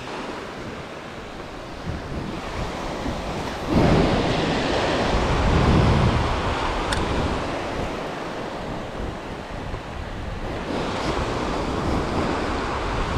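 Small waves breaking and washing up over a sandy beach, with a louder wash surging in about four seconds in and another near the end. Wind buffets the microphone.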